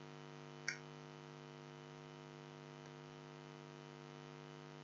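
Steady electrical mains hum on the recording, with a single short mouse click a little under a second in.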